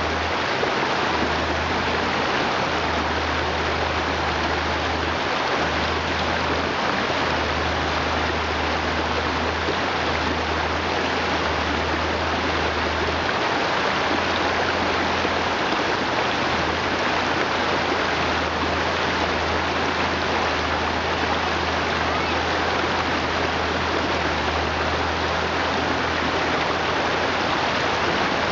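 Shallow rocky river rushing steadily over stones, a constant wash of water, with a low rumble coming and going underneath.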